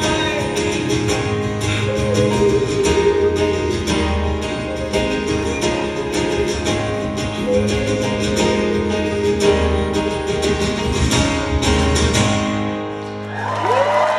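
Amplified acoustic guitar strummed in a steady driving rhythm, playing a live song's instrumental ending. Near the end the guitar stops and the audience starts cheering and whooping.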